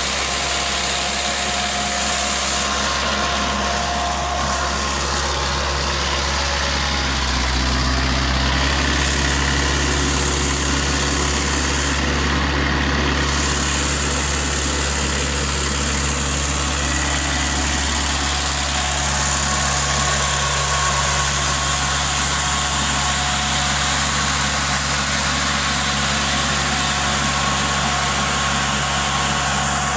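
Compact diesel tractor engine running steadily while it drives a tractor-mounted air-blast orchard sprayer, whose fan adds a steady rushing hiss of blown air and spray. The engine note shifts slightly about eight seconds in.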